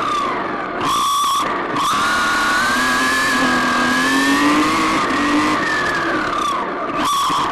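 RC car's motor whining at speed, its pitch rising and falling with throttle, with two short squeals about a second in and near the end.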